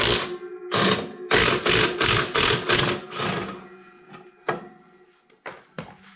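A handheld power tool run in a quick series of short bursts, undoing the bolts that hold the clutch pressure plate to the flywheel, then a few light metal clicks.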